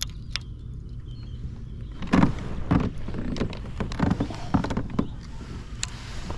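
Fishing rods and reels being handled in a kayak: a run of irregular knocks and thumps through the middle seconds, after two sharp clicks at the start, over a steady low rumble.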